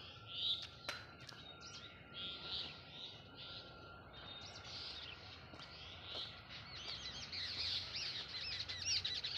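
Birds chirping and calling over and over, with a fast run of repeated notes near the end.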